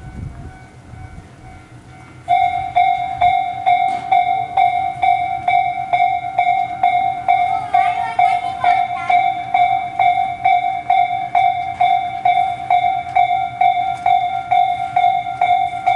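Tobu Railway level-crossing warning bell, the Tojo Line-type electronic chime known as Tobu sound C, starts about two seconds in and then rings steadily at a little over two strokes a second. It is the signal that a train is approaching the crossing.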